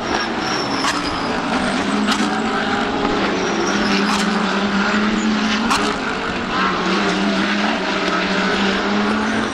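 GT3 race car engines running hard on a circuit, a steady loud blare of several engine notes whose pitch rises and falls, with a few brief sharp cracks.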